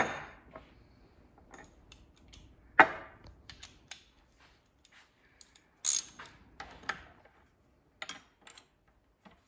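Steel wrench clinking and knocking on the band-adjuster nut and case of a Chrysler 727 TorqueFlite transmission as the retaining nut is tightened: a handful of sharp metal clanks a second or more apart, the loudest at the start, about three seconds in and about six seconds in.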